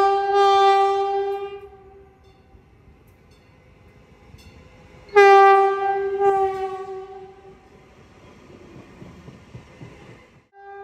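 Metrolink Arrow Stadler FLIRT diesel multiple unit sounding two long blasts on its horn, a single steady note, as it approaches: one at the start and another about five seconds in. The rumble of the railcars rolling past follows near the end.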